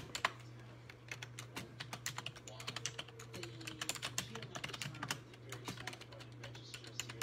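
Fingers typing: quick, irregular light clicks and taps, several a second, over a steady low hum.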